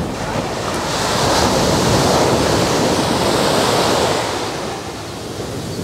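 Sea waves surging and washing in, one swell building about a second in and easing off after about four seconds.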